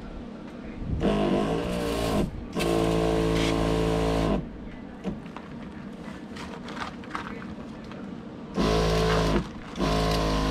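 Battery-powered knapsack sprayer's electric pump running in bursts as it sprays water: two runs of a steady hum between about one and four seconds in, then two short bursts near the end.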